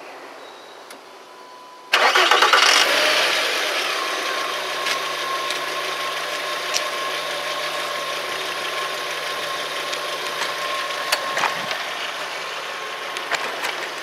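Volkswagen Golf 2.3 V5 petrol engine starting about two seconds in, briefly loud as it catches, then settling into a steady idle. New ignition parts have just been fitted to cure a misfire, and the owner greets the idle with "Excellent."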